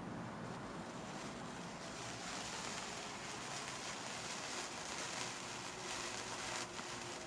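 Handheld picture-shaped toy firework burning with a steady hiss and fine crackling sparks, growing brighter about two seconds in.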